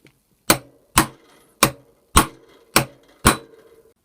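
Hammer striking a center punch against the armature shaft of an AEG BH25 rotary hammer, six sharp metallic blows about half a second apart, each with a short ring. The armature is not moving under the blows.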